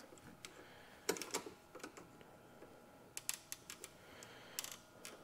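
Faint, irregular plastic clicks and rattles, some in small clusters, as a hand works an electrical connector loose from the purge valve's wiring harness.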